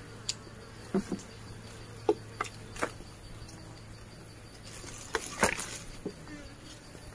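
A steady insect drone with a handful of short, sharp clicks and scrapes scattered through it, from a knife shaving a bamboo stick.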